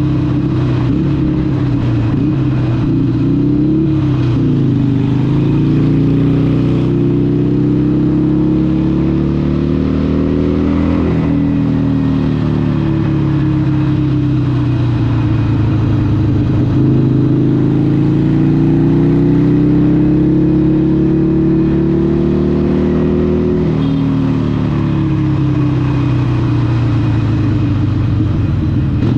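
Harley-Davidson 883 SuperLow's air-cooled 883cc Evolution V-twin running through a Vance & Hines exhaust while riding. The revs climb slowly under acceleration and drop sharply at gear changes about eleven seconds in and again near the end.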